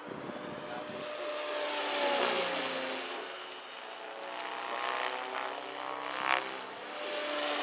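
Align T-Rex 600 radio-controlled helicopter flying aerobatics: the rotor and motor whine rises and falls in pitch as it manoeuvres, with a brief louder burst about six seconds in.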